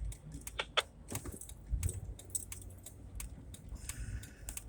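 A run of irregular light clicks and small rattles, like keys or handled gear, over a low steady rumble.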